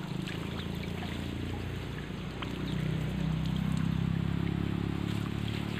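Water trickling and dripping, with scattered faint ticks, over a low steady motor hum that grows louder about three seconds in.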